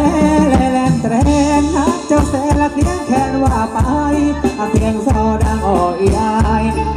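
Live band playing Thai ramwong dance music: a voice singing the melody over a drum kit keeping a steady beat.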